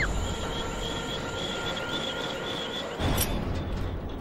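Soundtrack music of steady held tones with a warbling high line, broken about three seconds in by a sudden rough thud.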